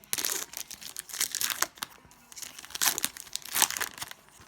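Foil trading-card pack wrapper crinkling and tearing as it is opened by hand, in irregular crackly bursts.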